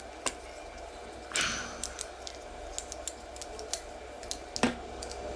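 Small clicks and taps of paintball-marker parts and small tools being handled on a bench, with a short scraping rasp about a second and a half in and a louder knock near the end.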